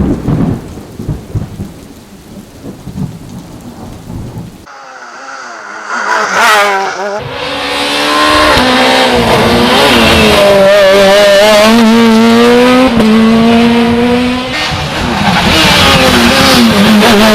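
A noisy, irregular rumble for the first four and a half seconds, then, after an abrupt cut, a rally car engine comes in, revving hard with its pitch climbing and dropping through gear changes, and stays loud at high revs.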